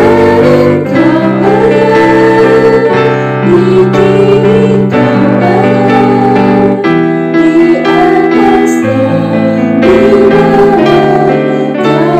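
Worship music: sustained piano/keyboard chords under a wavering melody line.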